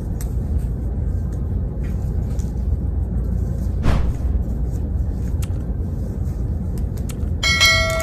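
Steady low rumble with faint clicks of clothes hangers being pushed along a rack. A sharp click just before four seconds in, and near the end a bright ringing bell chime: the sound effects of a pop-up subscribe button and its notification bell.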